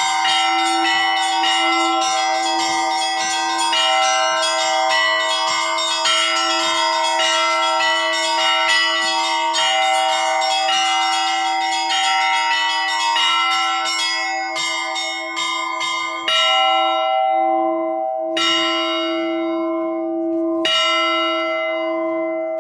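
Russian Orthodox church bells rung by hand in a festive peal: rapid strikes on the small bells over a steady hum from a lower bell. About 16 seconds in, the quick strikes stop, leaving three separate strokes that ring out as the peal winds down.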